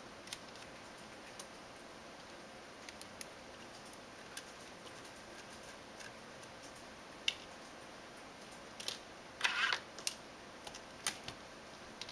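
Scattered small clicks and light scrapes of a screwdriver working the metal hinge screws and bracket on the side of a laptop LCD panel, with a short scraping rustle about nine and a half seconds in.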